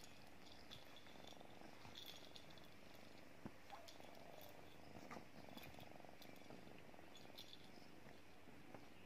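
A kitten purring faintly while it plays, with a few soft rustles and scratches of its claws on cloth.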